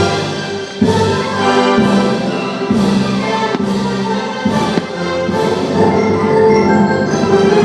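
Orchestral show music with brass and percussion, marked by strong accented beats just under a second apart that fade out in the last part.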